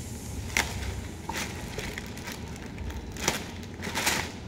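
Clear plastic bag around a new cordless vacuum being pulled and torn open by hand: several sharp crinkles and crackles of plastic film, the loudest after about three seconds.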